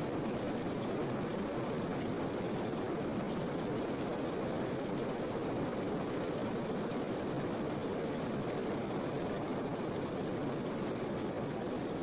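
Steady rushing water, a continuous even noise with no separate splashes, heaviest in the low-middle range.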